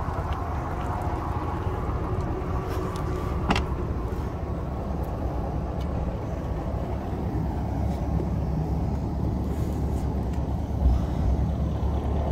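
Caterpillar diesel engine of a Ford 8000 water truck idling steadily, with a sharp knock about three and a half seconds in and a thump near the end.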